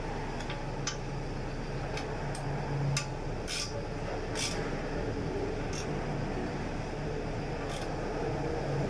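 Scattered light clicks and short metallic scrapes of the oil drain plug being refitted and tightened with a hand tool, over a steady low hum.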